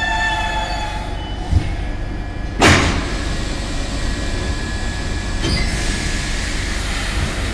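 Stockholm Metro C6 subway car at a station: a whine dies away in the first second or so, then the sliding doors bang once, sharply, about two and a half seconds in, followed by a steady hiss.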